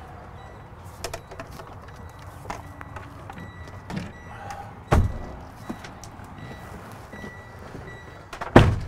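Knocks, thumps and shuffling of a person clambering through a truck cab from the back seat into the driver's seat, with a louder thump about five seconds in and the loudest near the end.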